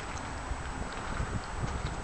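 Footsteps on gravel: uneven low thuds with small crunching clicks as someone walks, over a steady background hiss.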